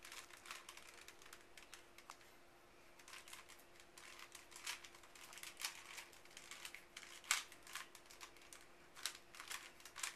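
Rubik's Cube being turned by hand: quiet, irregular plastic clicks and clacks as its layers are twisted, in quick runs with short pauses, during solving of the second layer.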